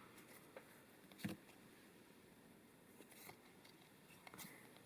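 Near silence broken by a few faint, brief clicks and rustles, the loudest about a second in: Magic: The Gathering trading cards and booster-pack wrappers being handled.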